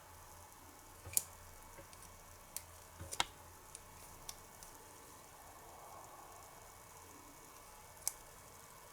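A few sharp, small clicks and taps, spaced irregularly over a faint steady hiss, typical of small plastic toy-kitchen utensils and parts being handled and set down; the loudest come about a second in, around three seconds in, and near the end.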